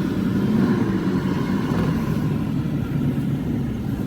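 Toyota Hilux pickup running steadily on the road, the engine and automatic transmission humming evenly, with none of the metallic clacking from the transmission that came before its repair.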